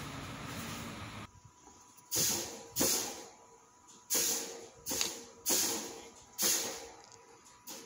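Atomstack A5 Pro laser engraver running for about a second: steady fan noise over the shifting hum of its stepper motors as the head moves, cutting off suddenly. After that comes a string of short hissing bursts, about one every two-thirds of a second.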